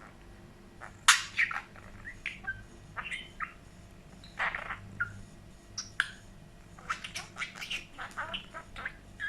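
Budgerigar chirping and chattering in many short, high calls, starting with a sharp loud squawk about a second in.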